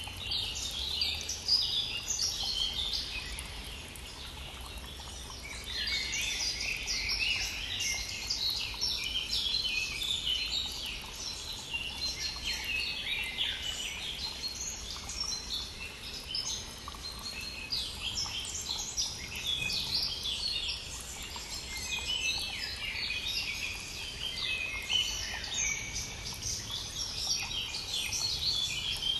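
Spring dawn chorus: many songbirds singing and chirping at once in quick, overlapping phrases, briefly thinning about four seconds in, over the faint rush of a brook.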